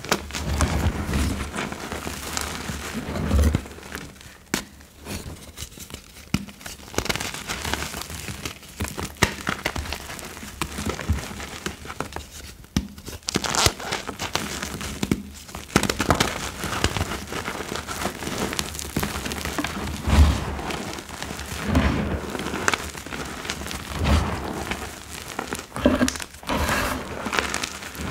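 Hands crushing and squeezing crumbled gym chalk and its loose powder: a dense, soft crunching and crackling, with a few dull thumps as the hands press down into the pile.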